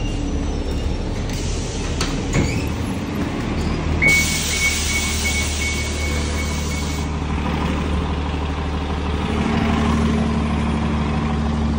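City transit bus: the diesel engine hums low and steady, and about four seconds in a loud burst of air hiss with a broken high beep lasts about three seconds. Near the end the engine note grows stronger as the bus pulls away.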